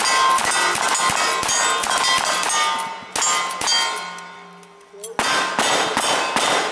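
Two rifles firing rapidly at steel plate targets: sharp shots in quick succession, each struck plate ringing on after it. The firing stops for about a second a little past the middle, then starts again.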